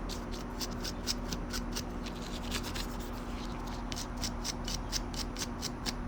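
Quick back-and-forth scrubbing of a cleaning brush on the feed ramp of a Canik Mete SFT pistol, about three to four strokes a second.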